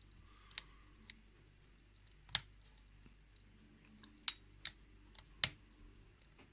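Lock pick working the pins inside a pin-tumbler challenge lock: about half a dozen small, sharp clicks at irregular intervals over a faint low hum.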